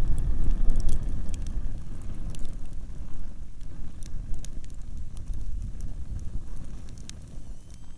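Wood fire crackling, with scattered sharp pops and snaps, over a low rumble of wind on the microphone that eases off toward the end.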